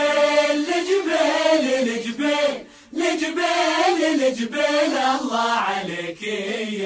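Arabic song with a chorus of male voices singing long, sliding held notes, with a short break about two and a half seconds in.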